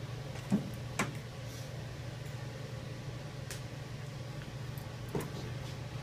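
A few sharp clicks and small knocks from hand tools and wire being worked while splicing electrical wiring, over a steady low hum.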